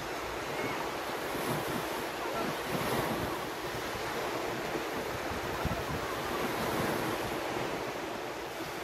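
Sea surf washing onto a sandy beach, a steady rush of waves, with wind buffeting the microphone in uneven low gusts.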